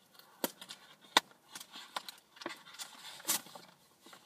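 Fingers picking and scraping at a gift's packaging: a few sharp clicks and scratches, the loudest a little over a second in, and a longer rustling scrape near the end.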